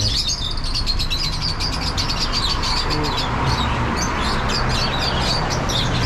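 Many small caged birds chirping and twittering together, a dense run of quick high-pitched chirps, over a steady low hum.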